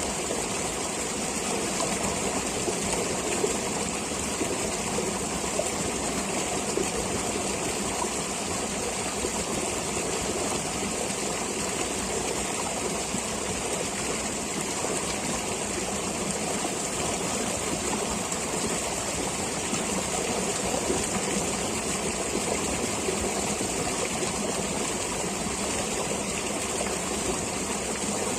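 Flowing stream water running steadily, a continuous, even rush of water with no breaks.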